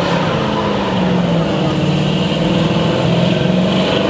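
First-generation Mercury Cougar's V8 held at steady high revs during a burnout, its rear tyre spinning in smoke. The car then pulls forward.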